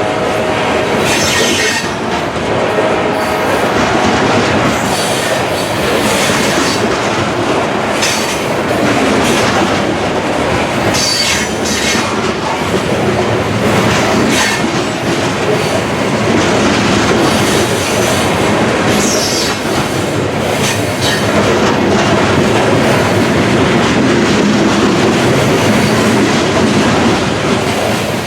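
Freight cars rolling past close by: a steady heavy rumble of wheels on rail, with clatter at the rail joints and brief high wheel squeals now and then.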